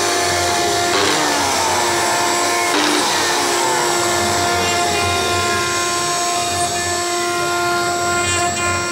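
Hand-held electric drill motor running steadily with a constant-pitch whine, with sudden noisy surges about a second in and again about three seconds in.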